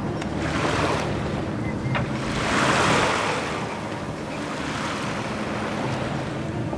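Sea water rushing and swishing along a sailboat's bow as it moves through calm water, swelling loudest about three seconds in, with wind buffeting the microphone and a steady low hum underneath.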